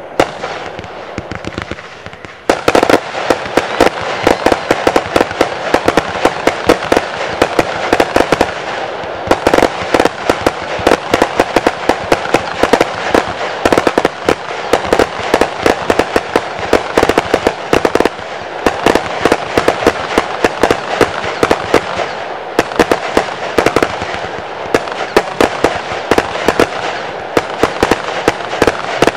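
Class C (1.4G) consumer fireworks going off in rapid succession: a dense, nearly unbroken run of sharp pops and bursts over a continuous rushing noise. The firing picks up sharply about two and a half seconds in.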